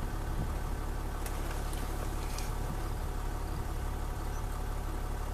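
Land Rover Discovery 4's engine running steadily.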